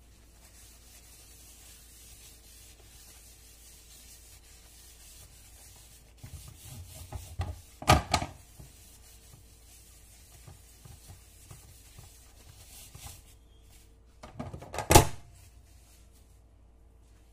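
A paper towel rubs oil over the plates of a sandwich press with a soft, steady scrubbing. This is broken by clattering at the press and two loud knocks, about eight seconds in and again near the end, the last as the lid is shut.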